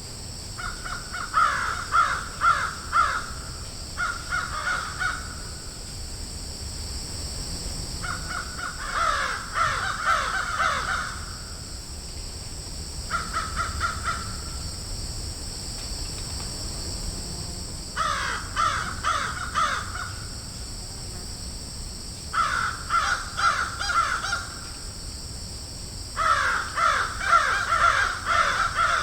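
Crows cawing in clusters of quick, harsh caws, each cluster lasting one to three seconds, with pauses of a few seconds between. A steady high hiss runs underneath.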